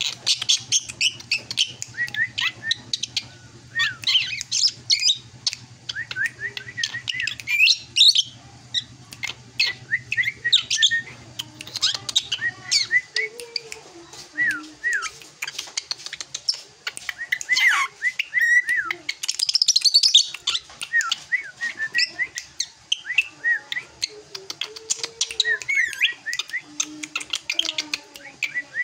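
Young drongo singing: a rapid, varied run of chirps, squeaky notes and short whistles in bursts separated by brief pauses.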